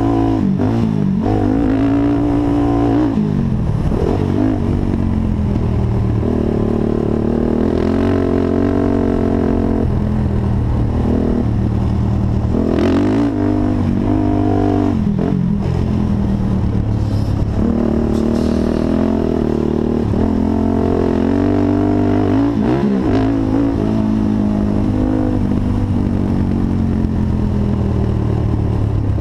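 Honda TRX450 sport quad's single-cylinder four-stroke engine, heard from an onboard camera, revving up and falling back again and again as it is ridden around a track. A few sharp knocks cut in along the way.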